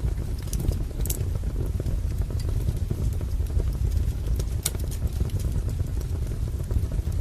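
Wood fire crackling: a steady low rumble with scattered sharp pops, two louder ones about a second in and just before five seconds in.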